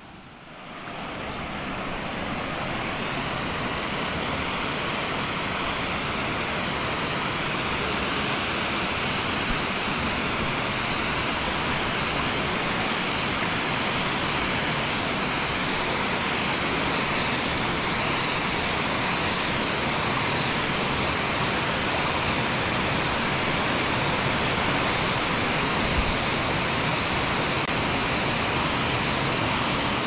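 Waterfall: a steady, even rush of falling water that fades in over the first second or two.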